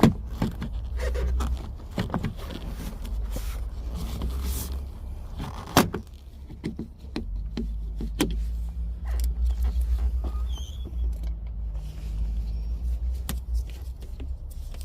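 Plastic and metal clicks and clacks of a Chevy Cruze exterior door handle and latch being worked by hand, with two sharp knocks, one at the start and one a little under six seconds in, over a steady low rumble.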